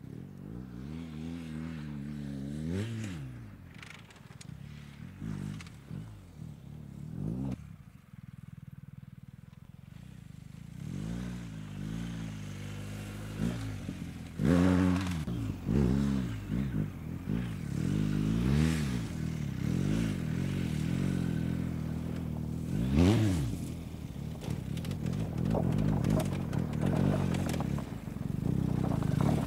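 BMW R 1250 GS's 1,254 cc flat-twin boxer engine revving up and down over and over as the motorcycle is ridden off-road, the pitch climbing and falling with each throttle opening. There are two sharp loud bursts of throttle, about halfway through and again about three-quarters through.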